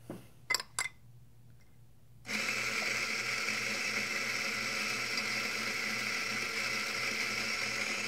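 A few light clicks, then, about two seconds in, a Rocket Faustino espresso grinder starts. Its motor runs steadily for about six seconds while it grinds coffee beans into the portafilter.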